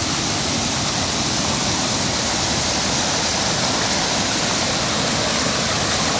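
Waterfall: the steady, unbroken rush of falling water.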